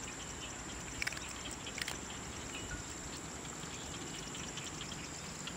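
Outdoor ambience: insects chirring steadily at a high pitch over an even hiss, with a couple of soft clicks about one and two seconds in.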